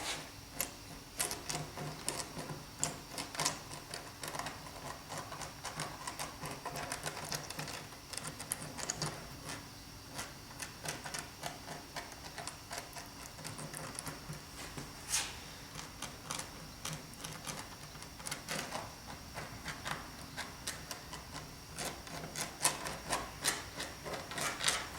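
Irregular light clicks and taps of small hand work at a bench, with a few sharper knocks, over a faint steady hum.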